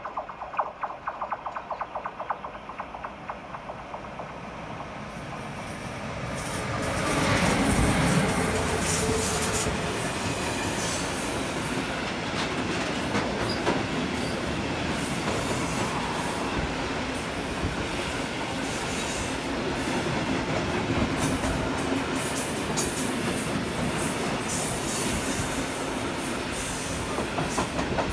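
Train passing: the running noise builds over a few seconds to its loudest about eight seconds in, then carries on steadily, with high-pitched wheel squeal coming and going.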